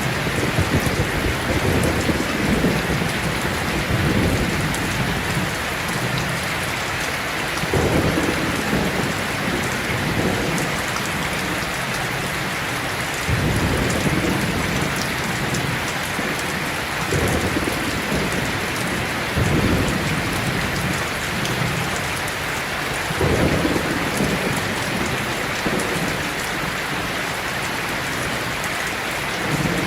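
Heavy rain falling steadily with a dense hiss, while thunder rumbles low in repeated swells every few seconds.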